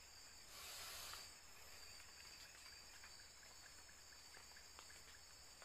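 Near silence: faint, steady chirring of night insects in the undergrowth, with a brief soft hiss about half a second in.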